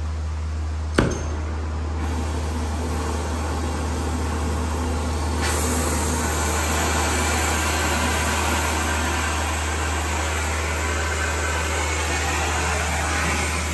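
Hand torch flame hissing as it heats a seized, rusted sway bar link nut to free it. A sharp click comes about a second in, and the hiss grows stronger about five seconds in.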